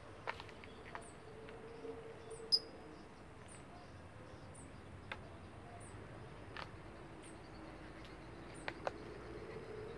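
Faint outdoor ambience: a high insect-like tick recurring about once a second, a few scattered light clicks, and one short high chirp about two and a half seconds in.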